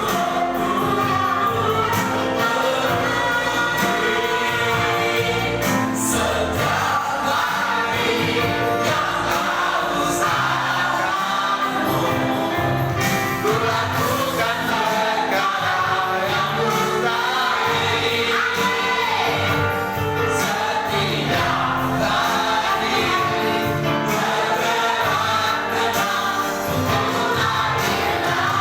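Congregational gospel worship song: a choir of voices singing over a live band with a steady beat.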